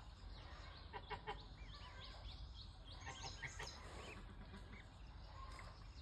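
Faint bird calls: clusters of short whistled chirps, one about a second in and more from about two and a half to four seconds in, over a low steady background rumble.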